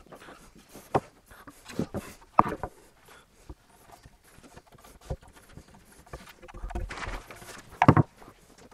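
Wooden spruce shelf boards knocking and clattering as they are handled, lifted and set down on a wooden workbench: scattered knocks with a brief rustle, the loudest knock near the end.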